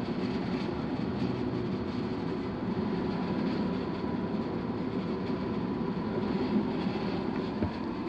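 Steady rushing hum of an HVAC air handler running in the attic, with a faint steady whine above it.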